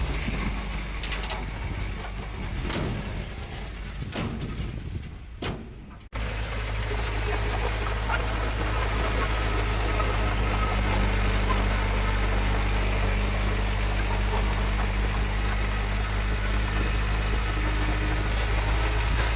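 Rough wind-like rumble with scattered clicks, then after a sudden cut about six seconds in, the heavy diesel engine of an earthmoving machine running steadily at low revs.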